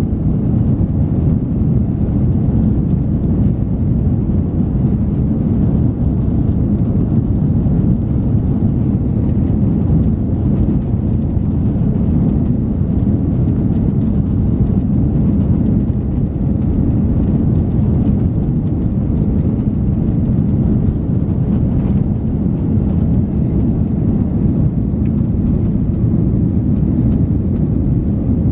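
Cabin noise of an Airbus A330-300 during its takeoff run and lift-off: the engines at high thrust and the rumble of the roll, a steady, loud low rumble heard inside the cabin.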